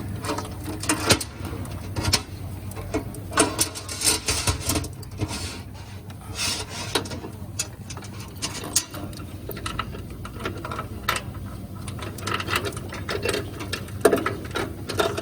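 A metal roller chain clinking and rattling in irregular bursts as it is fed by hand over sprockets and guides, with scraping of links against metal.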